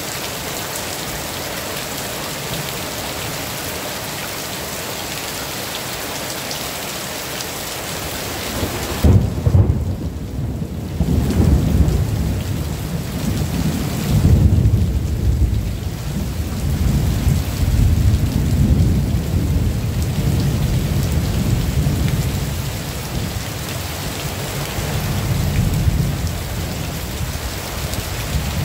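Steady heavy rain, then about nine seconds in a sudden clap of thunder that rolls on as a deep rumble, swelling and fading in several waves for most of the rest.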